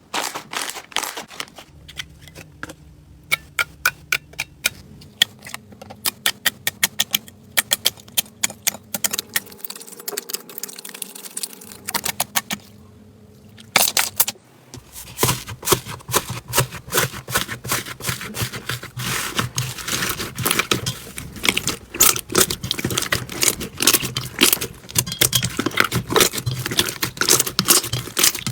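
Slime being squeezed and poked, making a run of sharp clicks and crackles. The clicks are sparser at first, then come thick and louder from about halfway on.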